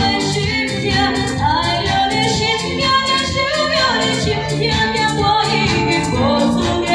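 A woman singing into a microphone, backed by a live band of drum kit, keyboards and guitar, with a steady drum beat.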